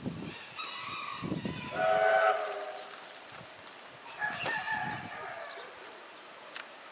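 A rooster crowing twice: a long crow that drops in pitch partway through, then a shorter one about four and a half seconds in.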